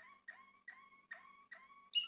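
Male Malinois Waterslager canary singing a slow tour of about five repeated whistled notes, each one dropping in pitch.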